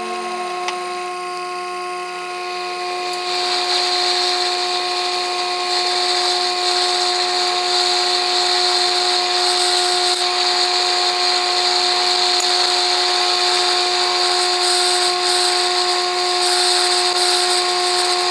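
Sherline milling machine spindle running with a steady whine, with a drill bit cutting into a pre-hardened 4140 steel block. The cutting adds a louder, high-pitched noise from about three seconds in.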